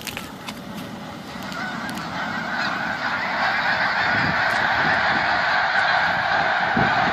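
Huge flock of snow geese calling as they take off, thousands of calls blending into one dense din. It grows louder over the first three seconds and then holds steady.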